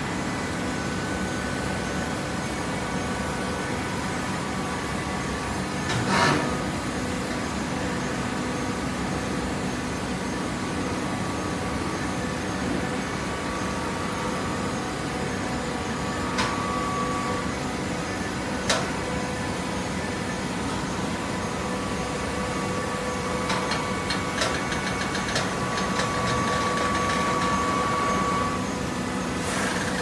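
Automatic horizontal hydraulic baler running: a steady machine hum, with a few sharp clanks and a higher whine that comes and goes.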